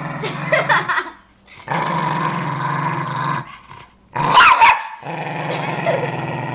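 Dog growling in long, low stretches while guarding its food, broken by two sharper snarling outbursts, the loudest about four seconds in.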